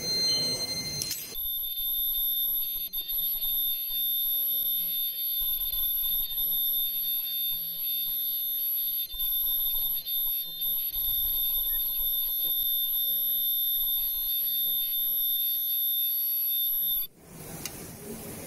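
Disposable mask machine running: a steady high-pitched whine with a faint repeating low pulse underneath. It starts abruptly about a second in and cuts off abruptly near the end.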